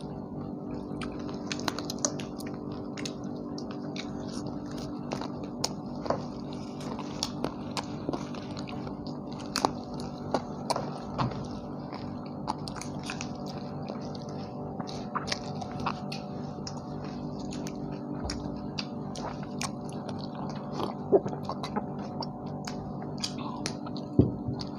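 People biting and chewing tandoori chicken, with scattered short clicks and crackles of eating. A steady low hum runs underneath.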